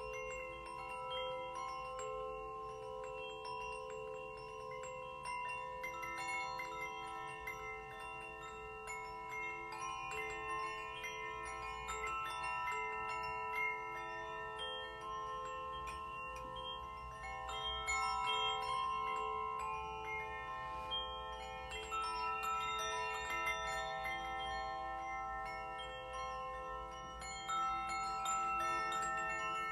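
Steel tongue drum (glucophone) played slowly, single metal notes struck one after another and left ringing so that they overlap.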